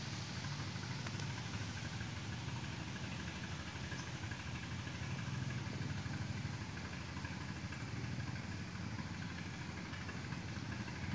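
Steady, even hum of an engine running, low-pitched and unchanging.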